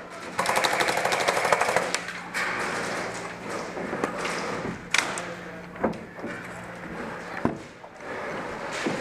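An airsoft gun firing a full-auto burst of about a second and a half, a fast even rattle of shots. It is followed by a few separate sharp cracks spread over the next few seconds.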